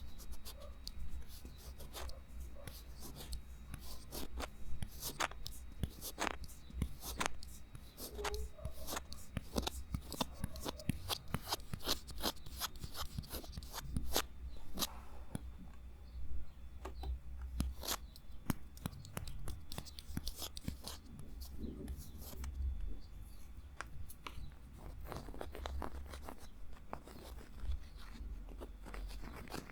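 Irregular crackling and sharp clicks, like something crinkled, torn or tapped close to the microphone, going on throughout.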